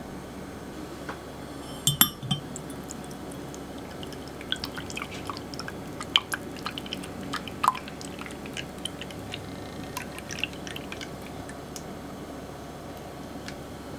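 Egg-and-milk pudding mixture poured from a glass jug through a fine-mesh metal strainer into an earthenware donabe pot, with scattered drips and small splashes. A sharp clink comes about two seconds in.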